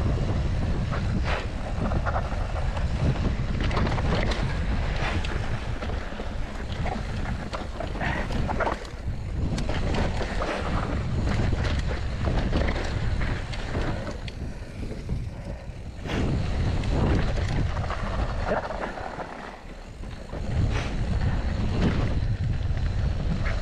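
Wind buffeting the microphone of an action camera on a mountain bike riding a dirt trail, a continuous rumble with scattered knocks and rattles from the bike over rough ground. It eases briefly about three-quarters of the way through, then picks up again.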